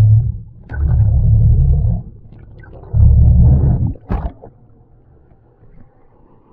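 Muffled rumbling of water rushing over an action camera held under the sea, coming in three surges. A short splash a little after four seconds as the camera breaks the surface, then a much quieter background.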